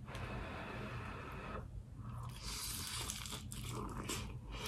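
Biting into and chewing a fried chicken pot pie egg roll close to the microphone, its crisp fried wrapper crunching and crackling. The crunching is densest in the second half.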